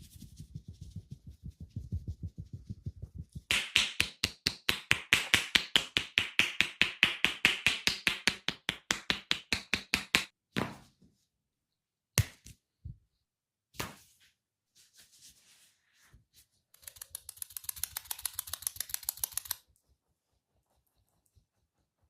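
Hands slapping and tapping on head and body in a fast percussive massage, about eight strikes a second, in several runs. A few single knocks come between the runs.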